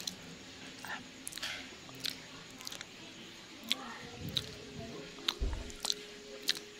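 Close-miked chewing of soft, sticky Filipino rice cakes (kakanin), with short wet mouth clicks scattered throughout. There is a dull low bump about two-thirds of the way through.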